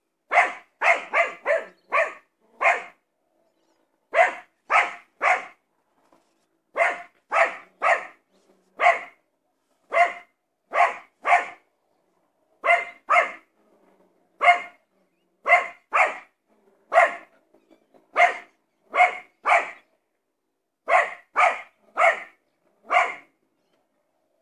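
Dog barking over and over, about thirty sharp barks in quick runs of two to five with short pauses between runs: agitated barking at a blimp flying overhead.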